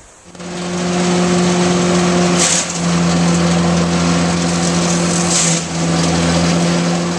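Trailer-mounted wood chipper running loud and steady, with a strong engine hum, as green leafy pepper tree branches are fed into it. Twice, about two and a half and five and a half seconds in, a brief harsh crackle sounds as the branches are chewed, and the engine dips.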